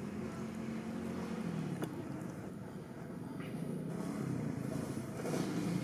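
An engine running steadily with a low hum that dips and shifts in pitch a couple of times, and a single faint click about two seconds in.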